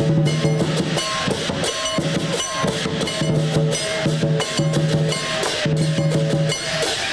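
Loud festive drum music: drums beaten in a steady rhythm with crashing cymbal or gong strikes over held pitched notes.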